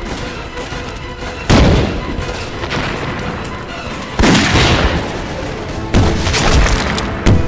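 Battle sound effects of gunfire and blasts: four loud booms spread through, one trailing off longer, over a bed of scattered shots and dramatic background music.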